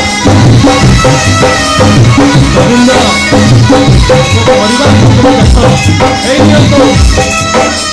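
Loud Odia jatra (folk opera) music: a steady drum beat with melodic instruments playing over it.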